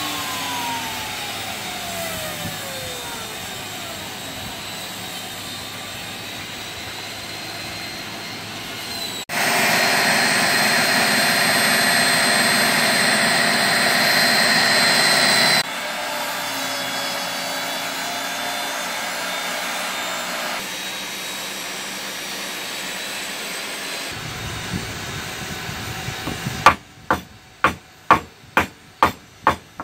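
A falling whine at the start, then a Porter-Cable benchtop table saw running loud and steady as it rips a long board, cutting off suddenly. Near the end, a hammer striking wood in a quick regular series, about two blows a second.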